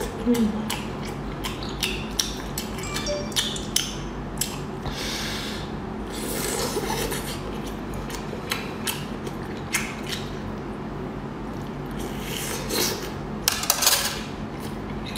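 Close-miked eating of braised abalone: a rapid, irregular run of wet mouth clicks and smacks from chewing, with a few longer wet sounds, the loudest cluster near the end.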